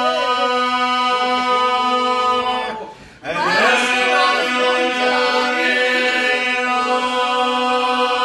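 Unaccompanied Albanian polyphonic folk singing: the group holds a steady drone (iso) while solo voices carry an ornamented melody above it. The singing breaks off briefly about three seconds in, then a voice re-enters with a sliding rise.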